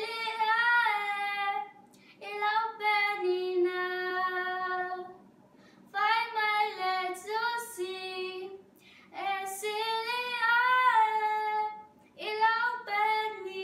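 A young girl singing solo and unaccompanied, in phrases of two to three seconds separated by short breath pauses.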